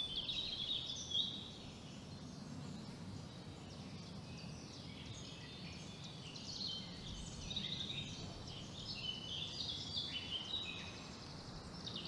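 Small birds chirping, many short overlapping calls in a steady chorus over faint background noise.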